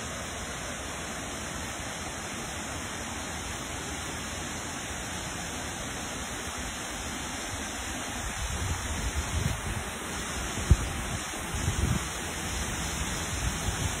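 Steady rush of water cascading down the rocks below a lake dam. From about halfway through, low irregular rumbles of buffeting on the microphone are added.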